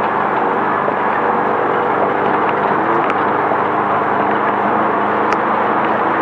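Class 5/1600 VW Bug's air-cooled 1600 cc engine running steadily at speed off-road, heard from inside the car amid loud rattling and road noise. Two sharp ticks come through, about three and five seconds in.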